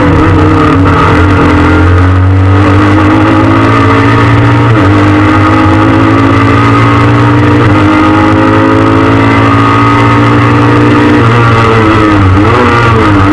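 Peugeot 306 S16 rally car's four-cylinder 16-valve engine heard from inside the cabin, pulling hard with revs climbing through the gears and sharp drops at upshifts about five and eight seconds in. Near the end the revs dip and rise several times, as the car brakes and changes down.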